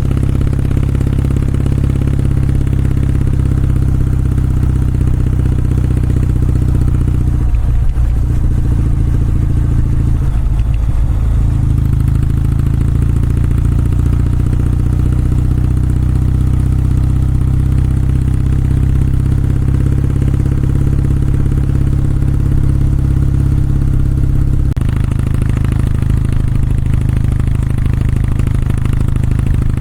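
Kawasaki W650's air-cooled parallel-twin engine and exhaust running at a steady riding pace. The engine note wavers briefly twice, about eight and eleven seconds in, and the sound changes abruptly a few seconds before the end.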